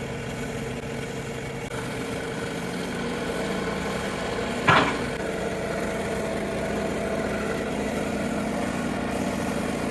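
Engine running steadily, with one sharp clank about halfway through.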